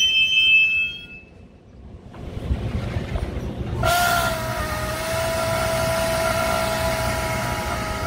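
Metra bilevel commuter train's wheels squealing high and steady, fading out about a second in. About four seconds in, a steady mid-pitched whine over a low hum starts abruptly from the train standing at the platform.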